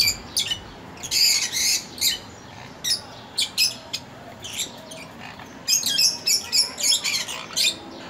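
Cockatiels in an opened nest box giving short, harsh squawks in quick bursts: a cluster about a second in, a few scattered calls, then a rapid run of them near the end.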